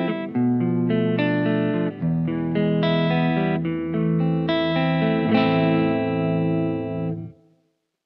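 Tokai LS-129 Les Paul-style electric guitar with two PAF-style humbuckers, played clean: a run of chords and picked notes, then a last chord struck about five seconds in that rings for two seconds before it is cut off.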